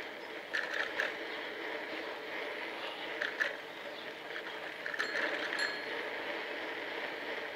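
Bicycle in motion: a steady rush of wind and tyre noise, with a few sharp clicks and rattles about half a second in, around three seconds and around five seconds.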